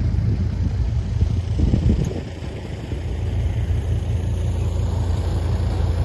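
Engine of asphalt-paving machinery idling steadily, a low rumble that dips briefly about two seconds in.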